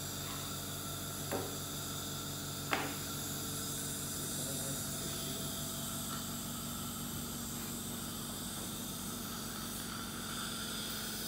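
Steady background hiss with a low hum, broken by two short sharp clicks about one and three seconds in, the clink of hand-held metal dental instruments.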